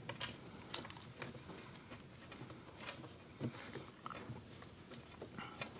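Faint scattered clicks and light rubbing as the transmission oil pan is handled and pushed up into place by hand, with a slightly sharper tick about three and a half seconds in.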